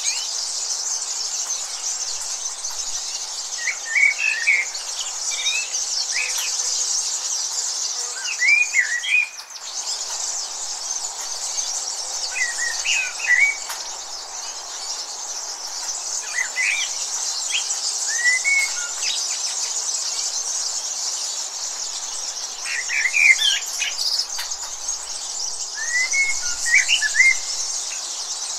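Birds chirping in short phrases every few seconds over a steady, high insect drone.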